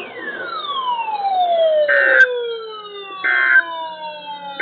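NOAA Weather Radio receiver sending the SAME end-of-message code after a tornado watch: three short, identical buzzy data bursts about a second and a half apart, marking the end of the alert. Under them, several whistling tones slide downward in pitch, overlapping one another.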